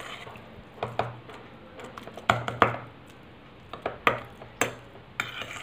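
Steel spoon stirring a thick paste in a stainless steel bowl: a series of short, irregular scrapes and clinks of metal on metal.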